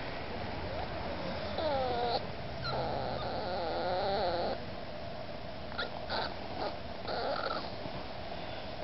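Miniature Pinscher puppy whining to be let up onto the couch: a short wavering whine, then a longer wavering one, then a few shorter whines, with a few light clicks in between.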